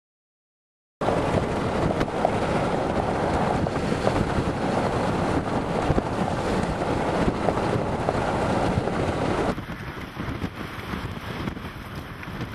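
Steady rushing noise of wind on the microphone mixed with the hum of the chase car's defroster and inverter cooling fans, starting suddenly about a second in. Near the end it drops to a quieter rush.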